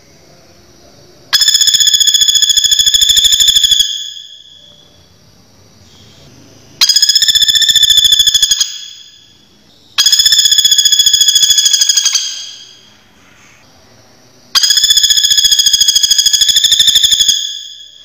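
Common flameback woodpecker calling: four loud, rattling trills of rapid, even notes, each lasting two to three seconds and starting abruptly, with a short echo as each one fades.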